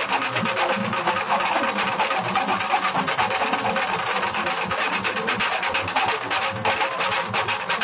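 Nashik dhol-tasha ensemble playing: small tasha drums beaten in fast, continuous stick rolls over the large dhol drums.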